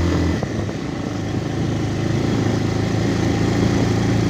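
Motorcycle engine running steadily as the bike climbs a steep concrete lane.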